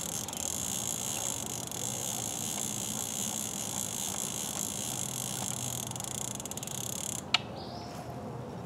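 Steady high-pitched chirring of insects, such as crickets or cicadas, in summer woodland. It drops away abruptly about seven seconds in, followed at once by a single sharp click.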